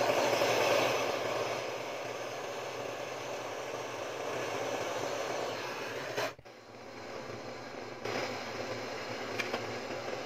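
Handheld gas brazing torch flame hissing steadily as it heats copper tubing on a refrigerator compressor, with a brief break about six seconds in before the hiss resumes.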